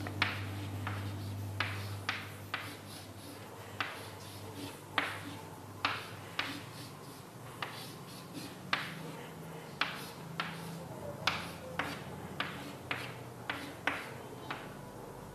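Short, sharp taps and clicks of a writing tool on the writing surface, coming irregularly at roughly two a second, over a faint low hum.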